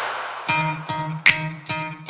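Background music. A loud passage dies away, and a rhythmic run of short, sharply struck notes begins about half a second in.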